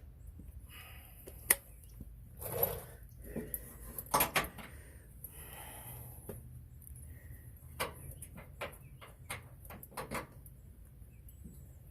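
Metal clicks and knocks of hand tools being worked at the top bolt of a pickup's rear shock absorber. A single sharp click comes about a second and a half in, and a run of irregular clicks comes near the end.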